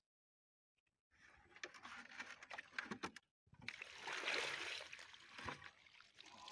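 Muddy water poured from a plastic bucket through a mesh sack, splashing and trickling onto wet mud. It starts about a second in and is loudest just past the middle.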